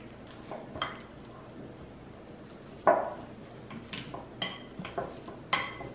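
Metal fork mashing overripe bananas in a glass mixing bowl, clinking against the glass in irregular taps, the loudest about three seconds in.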